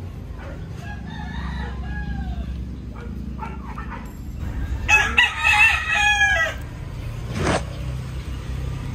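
A rooster crowing: a fainter crow about a second in, then a loud, long crow about five seconds in, over a steady low hum.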